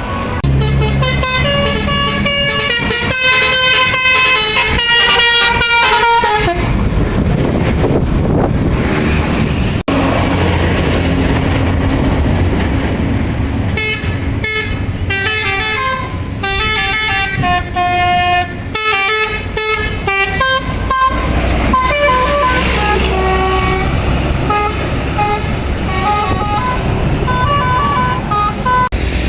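Bus telolet basuri horns playing quick melodic tunes of stepped notes, in two long runs with a lighter, higher run of short notes near the end. Between the first two runs, a passing vehicle makes a rushing noise.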